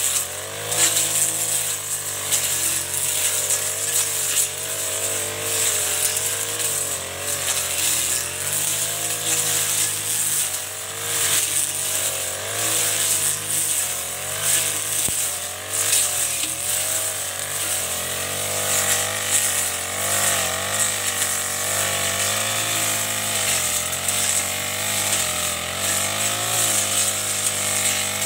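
Four-stroke backpack brush cutter with a Chinese Honda-pattern engine, running at high speed as its blade cuts thick, tall grass. The engine note wavers up and down as the blade takes the load.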